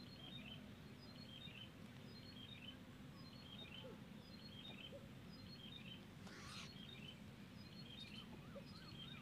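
Faint outdoor birdsong: small birds chirping over and over, with one short, harsh bird call about six and a half seconds in.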